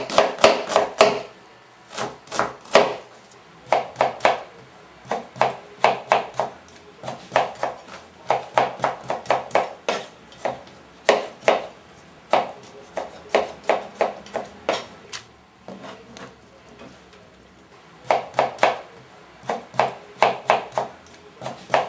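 Kitchen knife chopping red onion and tomatoes on a plastic cutting board: quick runs of sharp taps of the blade against the board, broken by short pauses, with a longer lull about two-thirds of the way through.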